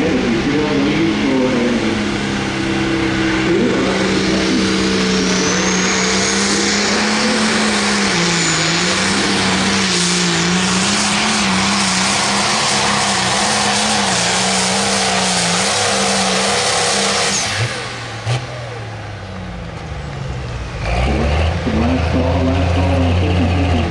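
Limited Pro Stock pulling tractor's turbocharged diesel engine at full throttle under load during a pull, its pitch wavering, with a rising high whistle a few seconds in. About seventeen seconds in the engine drops off as the run ends, and near the end a deeper engine comes up with a steady low drone.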